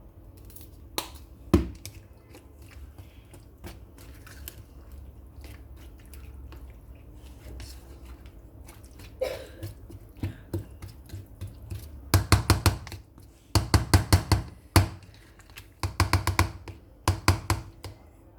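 Kitchen utensils and containers being handled: scattered knocks and clicks, then four quick runs of rapid tapping in the last third.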